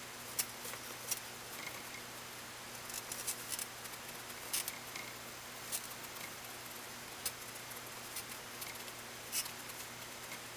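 Pencil scratching on paper in short, irregular strokes, over a faint steady low hum.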